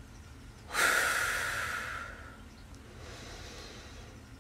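A woman's heavy breath, loud and rushing, about a second in, fading away over about a second and a half, followed by a softer breath.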